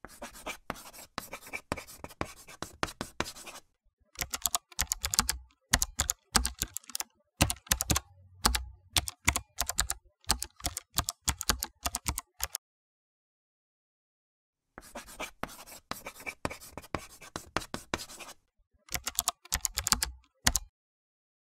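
Typing on a computer keyboard: quick runs of key clicks. The typing stops for about two seconds a little past the middle and stops again near the end.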